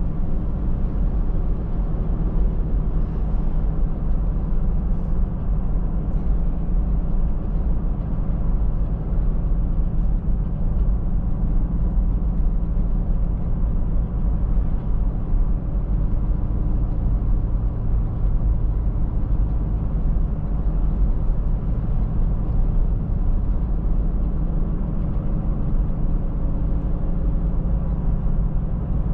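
A car driving at a steady pace: an even, low rumble of road and engine noise that holds constant throughout.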